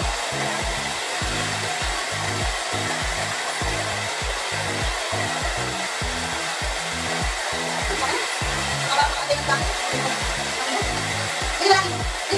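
Handheld hair dryer blowing steadily as it dries a wet Shih Tzu's coat, over background music with a steady beat.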